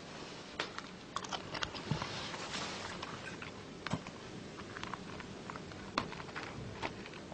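A small stemmed vodka glass lifted and slowly sipped from: a handful of faint, short clicks and small mouth sounds, spread unevenly over quiet room tone.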